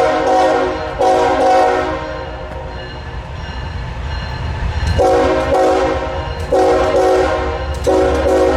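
Norfolk Southern heritage locomotive 8114's air horn played as a horn show. A long blast ends just under a second in, then comes a short blast. After a pause of about three seconds, three blasts follow in quick succession, over the low rumble of the diesel locomotives pulling the train.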